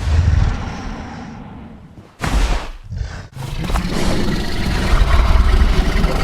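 Tyrannosaurus rex roar sound effect, three roars in a row: the first fades out over about two seconds, a shorter one follows, and a long third roar begins about three seconds in.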